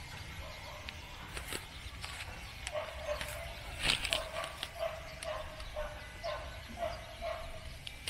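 A dog barking, a run of short barks starting about three seconds in and lasting some four seconds, with a sharp click among them.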